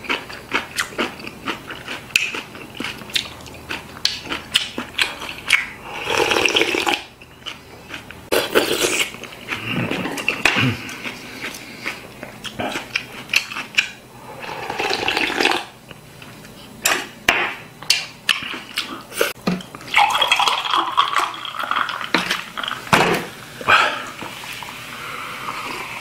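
Close-up eating sounds of kimchi noodle soup: slurping noodles and broth, chewing, and wooden chopsticks clicking against a bowl, with several louder slurps. About midway there are gulps of broth drunk straight from the tipped bowl.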